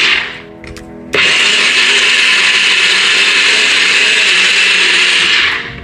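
Personal bullet-style blender running as it blends aloe vera flesh into gel. One burst ends just after the start, and after a pause of about a second the motor runs steadily for about four and a half seconds, then winds down near the end.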